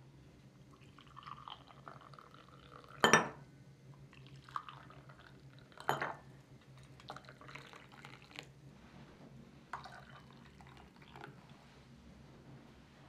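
Tea pouring from a glass teapot into two cut-glass tea glasses on glass saucers, in several short pours. Two sharp glass clinks about three and six seconds in are the loudest sounds, followed by a few lighter taps.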